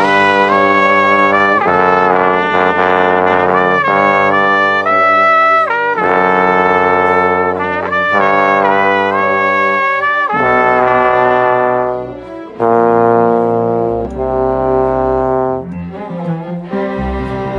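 Trombone playing a phrase of loud held notes right at the microphone, changing pitch every second or two, with a short break about twelve seconds in and softer playing near the end.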